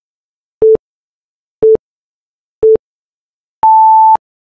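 Countdown timer beeps: three short electronic beeps a second apart, then a longer, higher beep as the timer reaches zero, signalling that time is up.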